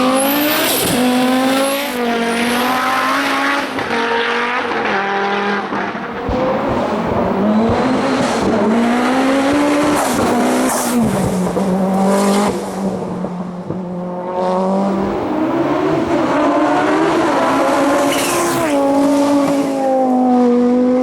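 Hillclimb race car engine run hard, its revs climbing and dropping again and again through gear changes as it drives up the course, with a few sharp cracks along the way.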